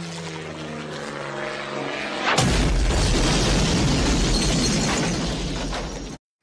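Cartoon explosion sound effect: a low tone sinks slowly in pitch, then about two and a half seconds in a loud boom breaks out and rumbles on for nearly four seconds before cutting off abruptly.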